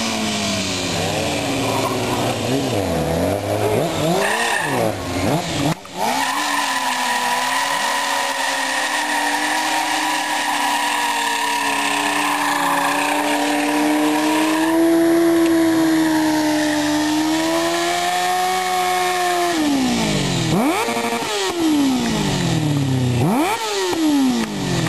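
Sport motorcycle engine revved up and down, then held at high revs for about fourteen seconds in a burnout, with steady tyre squeal. Near the end the revs drop and are blipped up and down several times.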